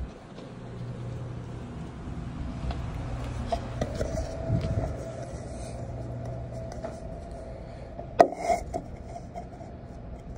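Indoor room tone of a restaurant dining room: a steady low hum, joined about four seconds in by a faint steady higher tone, with a few light clicks of handling. Just after eight seconds comes a short cluster of sharp knocks as the phone is set down on the table.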